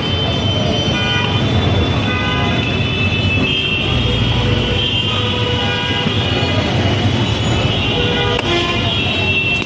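Busy street traffic noise with vehicle horns tooting, mixed with background music.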